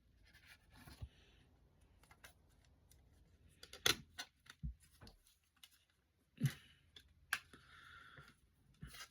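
Quiet handling of CD cases and packaging: faint rustling with a few sharp clicks and taps scattered through it.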